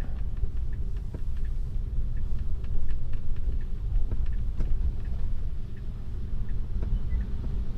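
Tesla's tyres rolling slowly over snow, heard inside the cabin: a steady low rumble with scattered small clicks and crackles.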